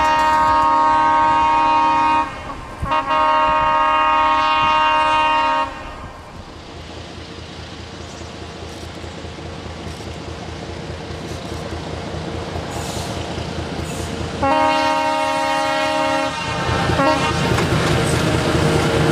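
A ČKD Class 770 (T669) diesel-electric locomotive hauling tank wagons sounds its horn in two long blasts. The diesel engine runs between them, growing louder as the train approaches. A third long blast comes about 14 seconds in, then a short toot, and the locomotive and its wagons run close past with loud engine and wheel noise.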